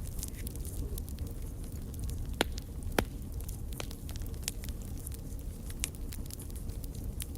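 Wood campfire burning with a steady low rumble and frequent small crackles, two sharper pops standing out about two and a half and three seconds in.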